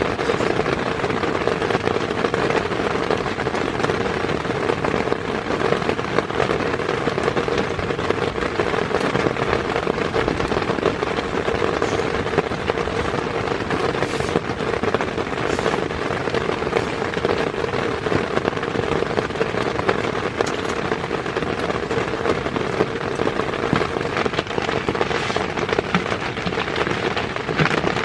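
Heavy rain falling on a tent's fabric: a dense, steady crackle of countless drops hitting close by.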